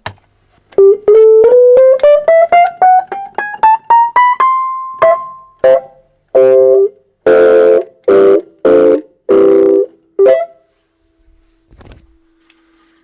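Vintage Hohner electric reed keyboard, freshly tuned, played as a test: a quick rising scale of single notes ending on a held high note, then a series of short chords, then a faint steady hum from the amplifier.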